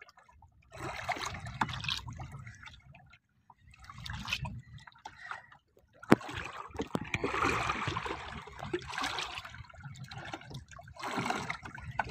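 Water sloshing and trickling around a small boat, coming in several irregular bursts with a low rumble underneath.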